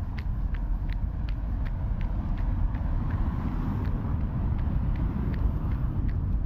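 A runner's footfalls on a wet city street at a steady running pace, nearly three steps a second, over a low rumble of passing traffic, with a vehicle swelling past around the middle.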